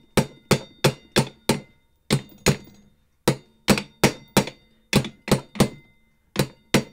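Small hammer tapping a new front wheel bearing into a motorcycle wheel hub, working evenly around it to drive the bearing in square. There are about three sharp metallic taps a second in short runs with brief pauses, each with a short ring.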